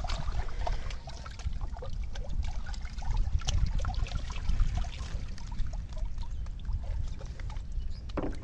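Water splashing and sloshing as a fish thrashes inside a bamboo polo trap held down in shallow flood water, with short irregular splashes over a low rumble.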